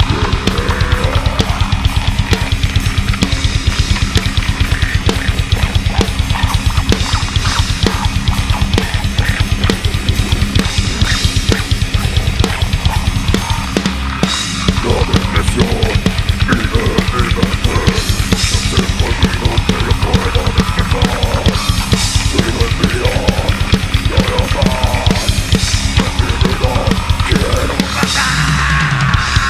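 Heavy metal band playing live, drums to the fore: a fast, dense bass-drum beat with snare, and cymbal crashes every few seconds in the second half.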